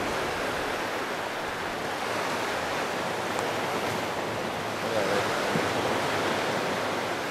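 Surf washing steadily onto the beach, a continuous even rush of breaking waves.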